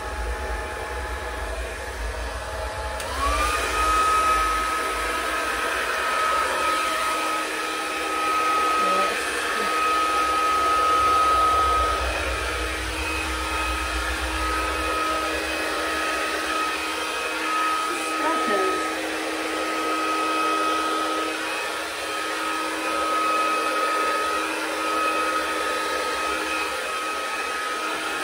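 Handheld hair dryer blowing a steady stream of air. Its motor whine rises in pitch about three seconds in and then holds steady.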